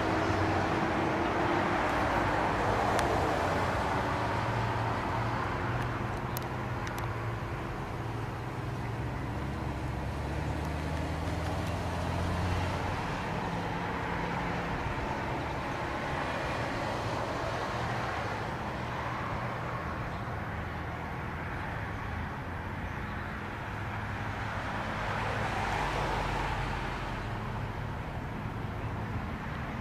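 Distant Federal Signal 2T22 dual-tone rotating tornado siren sounding its test tone, swelling and fading about every seven or eight seconds as it turns. A vehicle engine rumbles low underneath from about eight to thirteen seconds in, with wind noise.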